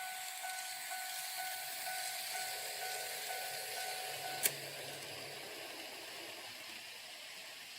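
Warning bell of a KATO N-scale automatic level crossing chiming at about two strikes a second. It cuts off with a sharp click about four and a half seconds in. A low hum sounds underneath through the middle of the stretch.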